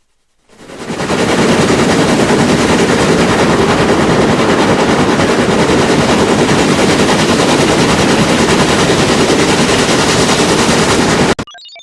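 Heavily distorted, effect-processed audio of a TV channel ident played in reverse: a loud, dense rattling noise with rapid, even pulses. It fades in over about the first second and cuts off abruptly near the end, leaving a few faint scattered tones.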